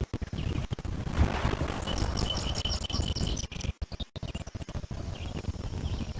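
Lake waves lapping and splashing against shoreline stones, choppy and irregular, with a low rumble. About two seconds in, a bird gives a rapid run of high chirps lasting a second and a half.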